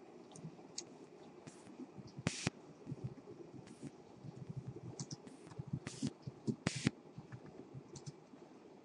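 Irregular, light clicking of a computer keyboard being typed on, with a couple of louder clicks.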